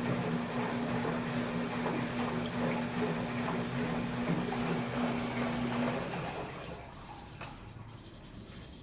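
KMC washing machine running: water churning and splashing over a steady motor hum, both stopping about six seconds in. A single click follows near the end.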